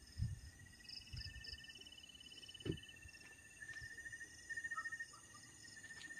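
Night insects, crickets among them, chirping and trilling in several overlapping pulsed calls at different pitches. A few soft low thumps near the start and a sharper knock about halfway through.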